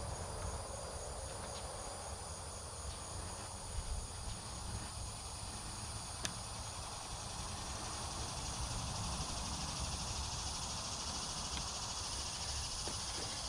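Crickets chirping steadily, a high, evenly pulsed trill, with a few faint clicks and one sharper click about six seconds in.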